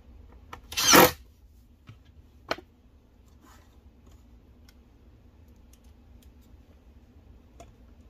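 Cordless driver running a screw into a metal drawer slide in one short burst about a second in, followed by a sharp click and a few light ticks.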